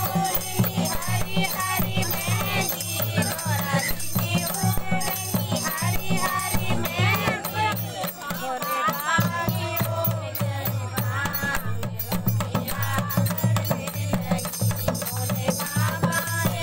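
A group of women singing a Hindu devotional kirtan in chorus, over dholak drum beats, rhythmic hand clapping and a rattle.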